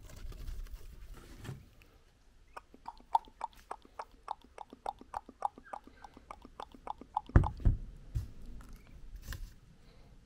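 Ducklings pecking at chopped onion, a quick run of short sharp ticks about four or five a second, with one loud knock about two thirds of the way in.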